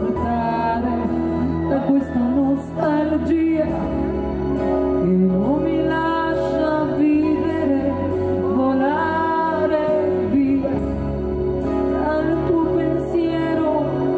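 Live pop ballad: a female singer sings into a microphone over keyboard and acoustic guitar accompaniment, with sustained low notes underneath.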